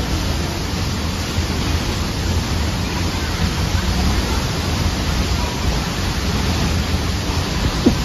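Pagsanjan Falls pouring down, heard from inside the cave behind its curtain of water: a loud, steady rush of falling water.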